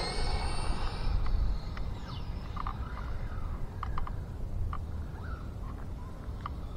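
RC drag car's electric drive whine trailing off in the first second as the car speeds away. After that comes a steady low outdoor rumble with a few short high chirps.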